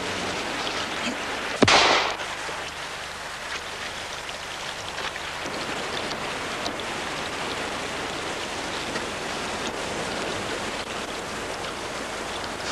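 Steady water noise around a wooden rowing boat being rowed, with a single sudden sharp crack and a short hiss about one and a half seconds in.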